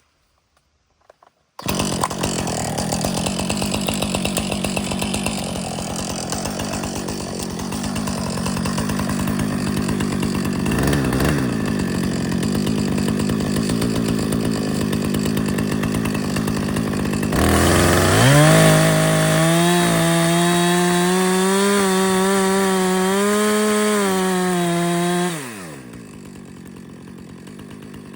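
Gas chainsaw cutting through a small tree trunk on the back cut, starting after a brief silence. About 17 seconds in, the engine climbs to a steady high-revving whine. Near the end it drops suddenly back to a low idle.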